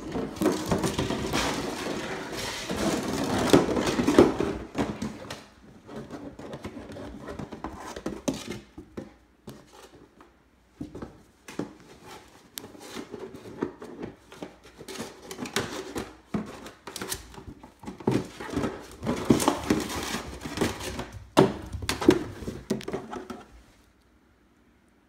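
Empty plastic milk jug being chased, bitten and knocked about by a Border Collie puppy: irregular hollow clatters and crinkling plastic, stopping shortly before the end.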